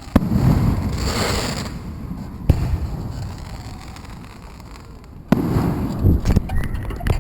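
Fireworks bursting: three sharp bangs, one near the start, one about two and a half seconds in and one just past five seconds, each followed by a rumbling, crackling tail.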